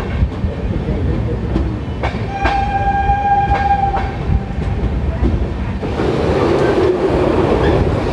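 Passenger train running, with wheels clicking over rail joints. About two and a half seconds in, the locomotive horn sounds one steady note for about a second and a half. Near the end the running noise grows louder and rougher.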